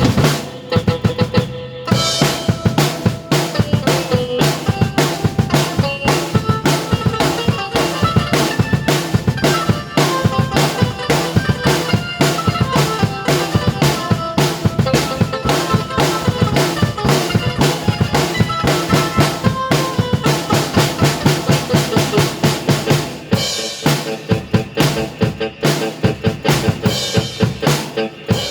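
Drum kit played fast and hard, with bass drum, snare and rimshots, together with a keyboard melody. The drumming starts sparse and fills out into dense strokes about two seconds in.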